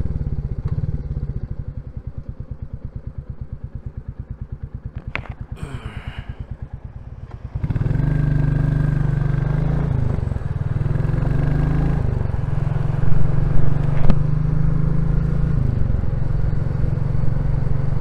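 Royal Enfield Classic 350's single-cylinder engine idling with an even, pulsing thump, then pulling away about halfway through and accelerating up through the gears, with short dips at the gear changes.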